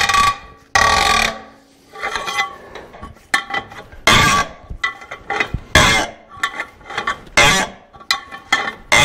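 Steel clanking and clinking, a string of irregular sharp hits that each ring briefly, from working a stuck, rounded-off bolt out of a Cat D4 bulldozer's idler spring guide.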